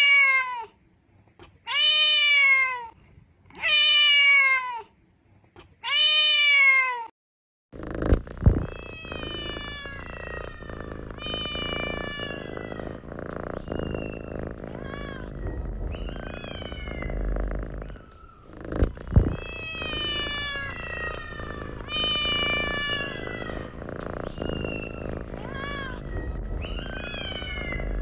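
Kittens meowing: first four long, loud meows about two seconds apart, each falling in pitch. Then, from about eight seconds in, many shorter, higher mews overlap one another over a steady low background noise, broken by a couple of sharp knocks.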